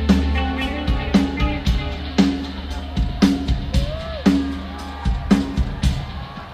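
Live rock band playing with electric guitars, bass and a drum kit, the drums striking about once a second. The music thins and drops in level near the end.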